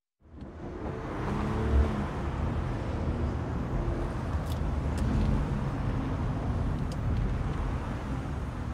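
Steady low rumble of a car and road traffic, fading in from silence at the start, with a few faint ticks.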